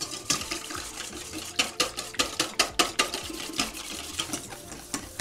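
Wire balloon whisk beating liquid cream in a stainless steel bowl: rapid, regular clicks of the wires striking the metal, about five a second, over a light sloshing. The clicks are loudest in the middle.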